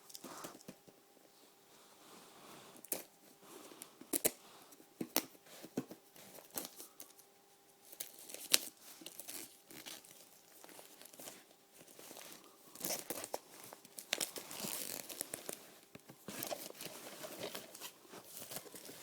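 Packaging being torn open and crumpled by hand, with scattered sharp snaps and clicks in the first half and a denser stretch of crinkling past the middle.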